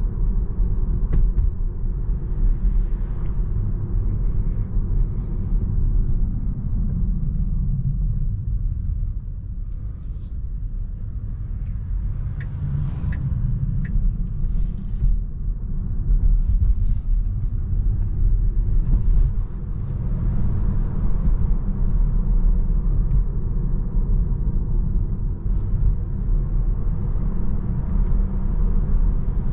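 Tesla Model 3 electric car driving, heard from inside the cabin: a steady low rumble of tyre and road noise with no engine note. The rumble eases off about a third of the way in and builds again, and a few brief high ticks come about halfway through.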